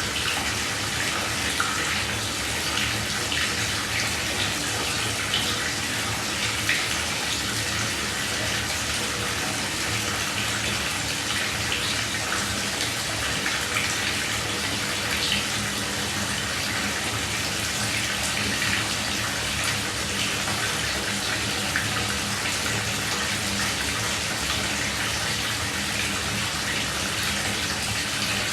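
Shower water running steadily: an even hiss of falling spray with small spatters.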